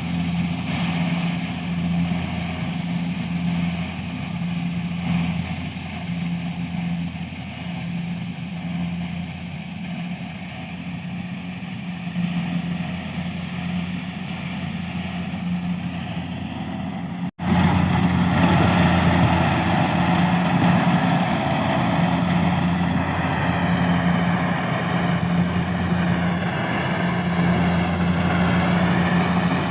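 Kubota DC70 combine harvester's diesel engine running steadily with a constant hum. There is a momentary break a little past halfway, after which it is louder.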